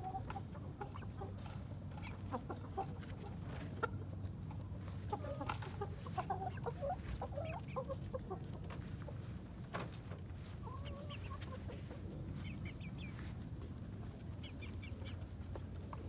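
Roosters clucking, short scattered calls throughout, over a steady low background hum.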